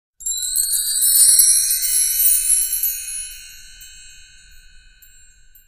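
A shimmering cluster of high chimes sounds suddenly just after the start, swells for a second or two, then slowly fades away over about four seconds.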